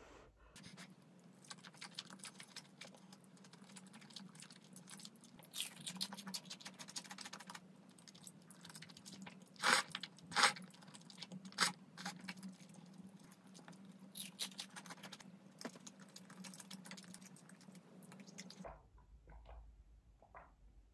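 Close-miked eating sounds of a person chewing and slurping spicy braised chicken stew with glass noodles and melted cheese: a dense run of small wet mouth clicks and smacks, with a few sharper, louder ones about ten seconds in. The eating sounds stop shortly before the end.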